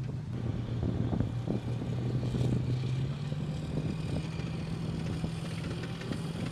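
Amphibious assault vehicle's diesel engine running steadily as the tracked vehicle drives out of the surf onto the beach. The engine note steps higher about three seconds in.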